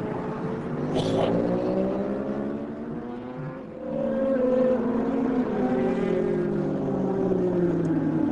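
Superbike racing motorcycle engines at high revs. Their pitch slides down, dips briefly, then climbs again about four seconds in as more bikes accelerate.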